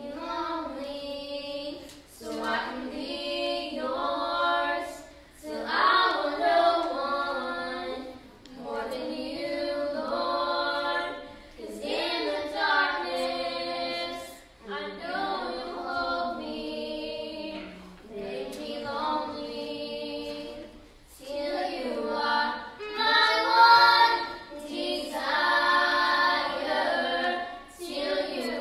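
A small group of children and teenage girls singing a worship song together, in sung phrases of a few seconds each with short breaks between, loudest a little before the end.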